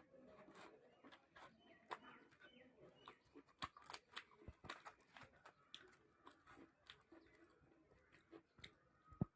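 Faint close-up eating sounds: puri being torn and chewed with chana dal sabji, a run of irregular wet mouth clicks and soft crunches, with one sharper click near the end.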